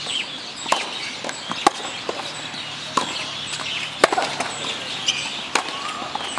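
Tennis ball struck by rackets and bouncing on a hard court in a serve and rally: sharp single pops about every second or so. Birds chirp faintly in the background.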